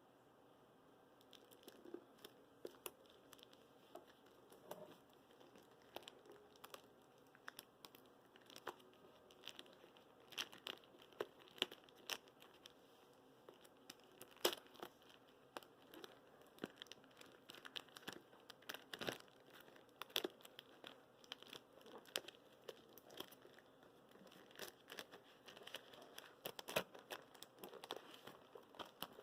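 Faint, irregular crinkling and clicking of packaging being handled and opened, with scattered sharper clicks.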